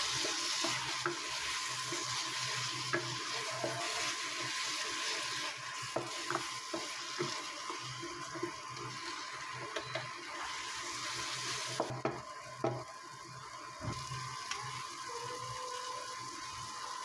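A wooden spatula stirring and scraping a sauté of eggplant, onion and tomato in a nonstick wok, with light taps and scrapes over a gentle sizzle of frying. The sizzle is strongest for the first few seconds and again about ten seconds in.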